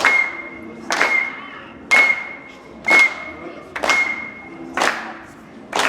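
An audience clapping hands in unison in a slow, steady rhythm, about one clap a second, with faint group singing underneath. A thin, steady high tone sounds between the claps until about four seconds in.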